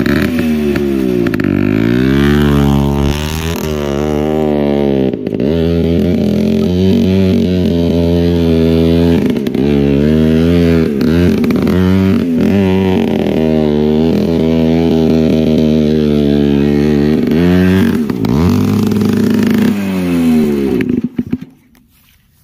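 TVS Max 100 motorcycle engine revving, its exhaust blown out through a metal loudspeaker horn fitted to the silencer: a loud, buzzy horn-like note that rises and falls many times with the throttle. It stops about a second before the end.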